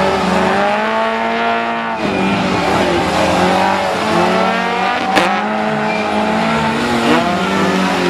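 Rally car engine revving hard, its pitch climbing and dropping back repeatedly through gear changes as the car slides through a tight turn, with tyres squealing. A sharp crack about five seconds in.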